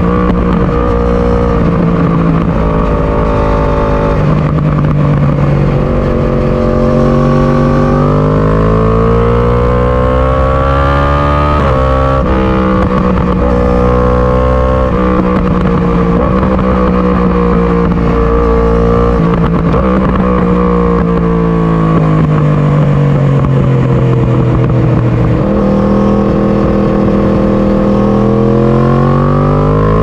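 2018 Yamaha R1's crossplane inline-four through an Akrapovic Evolution exhaust, pulling up and rolling off through the gears. The pitch climbs and falls, with sudden steps at each gear change, several times over.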